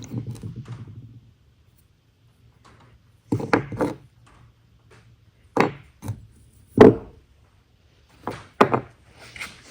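A short rattle, then a series of separate sharp knocks and clunks as engine parts and tools are handled and set down during a Ford 302 V8 teardown.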